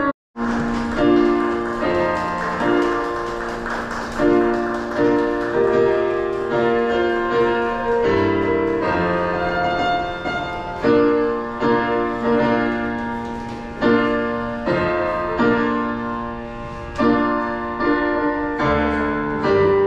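Piano playing a slow wedding processional, sustained chords with a new chord or melody note every second or so.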